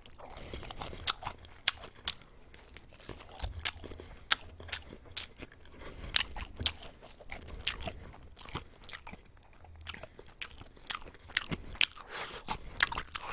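A person biting and chewing Goobne Deep Cheese roasted chicken close to the microphone, with many sharp, irregular crunches.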